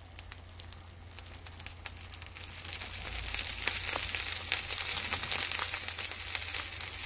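Scored eggplant halves topped with a soy and chili seasoning sauce sizzling and crackling in a frying pan, growing louder about halfway through. A steady low hum runs underneath.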